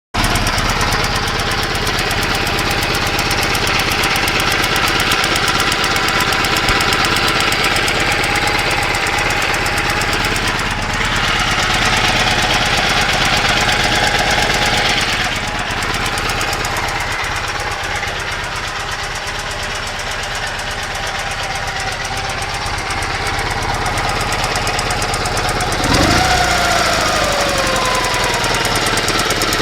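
Dnepr MT-11 flat-twin motorcycle engine running with a knock. The owner says the knock comes on about 15 seconds after a cold start and has ruled out the valves, so its cause is unknown. Near the end the pitch briefly rises and falls.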